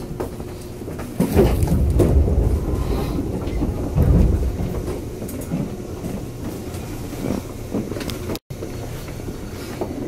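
A 201 series electric train running, heard from inside the car: a low rumble of wheels on rail with clacks over the rail joints, loudest between about one and five seconds in. The sound cuts out for an instant about eight seconds in.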